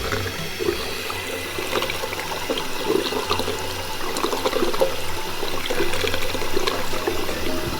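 Water pouring and splashing with irregular gurgling.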